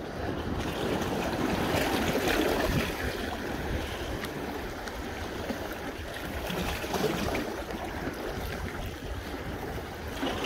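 Wind buffeting the microphone over small sea waves washing against the rocks of a stone breakwater, a steady rushing noise that swells a second or two in and then eases.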